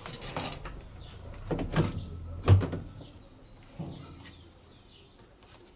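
A series of knocks and clunks, about six, the loudest about two and a half seconds in, over a low hum that fades in the second half.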